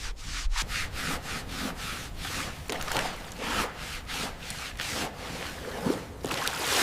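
Repeated rubbing or scraping strokes against a surface, about two to three a second, in a steady back-and-forth rhythm, as in hand sanding or scrubbing.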